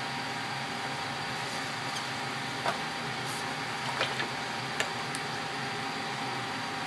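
Steady hiss of kitchen background noise, with a few light clicks and taps in the middle of the stretch from food being handled at the counter.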